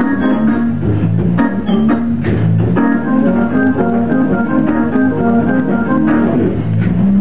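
Hammond organ played in a gospel style: full sustained chords on the manuals over a bass line that keeps moving.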